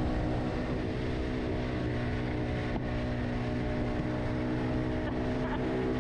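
Outboard motor of an inflatable dinghy running steadily while the boat moves at speed over choppy water, with wind and rushing water around it.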